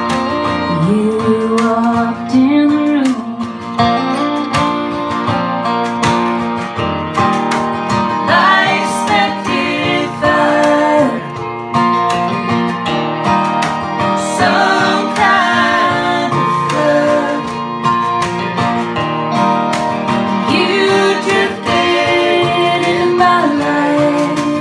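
Live acoustic folk song: a strummed acoustic guitar and a bowed fiddle, with women's voices singing.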